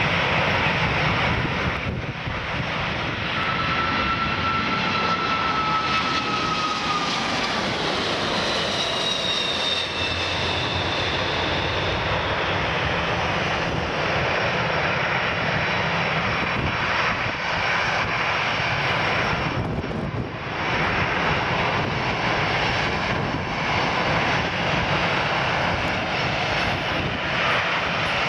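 Four Rolls-Royce RB211 turbofan engines of a Boeing 747-400 freighter landing and rolling out: a steady jet roar with whining engine tones that slide down in pitch as it passes.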